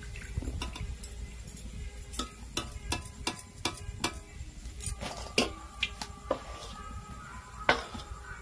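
Wire-mesh skimmer knocking and clinking against an iron kadai while fried malpua are drained of oil: a run of sharp, irregular metal clinks with a short ring after each, two of them louder, about midway and near the end.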